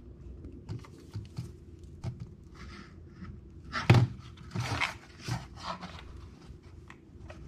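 Handling noises from fishing tackle being worked by hand: small clicks and rustles of line, hooks and soft plastic lures, with one sharp knock about four seconds in followed by a brief rustle.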